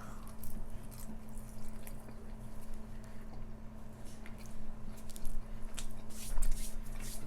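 Close-miked chewing of food, with scattered wet mouth clicks that come more often in the second half, over a steady low hum.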